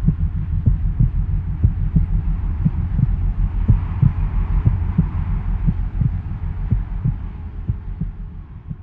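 Deep, low pulsing drone with soft, regular thuds about three a second, like a slow heartbeat in the soundtrack, fading out near the end.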